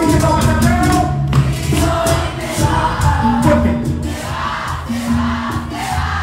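Live bachata band music played loud: bass notes, several voices singing, and the rhythmic scrape of a metal güira.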